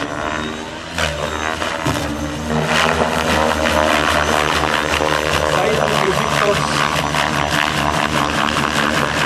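Electric Compass 6HV model helicopter flying hard 3D aerobatics, its rotor blades whooshing in rapid pulses over a steady motor and rotor whine.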